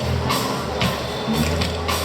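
Live band music over a large PA at a stage sound check: drum kit with cymbal strokes over low, held bass notes.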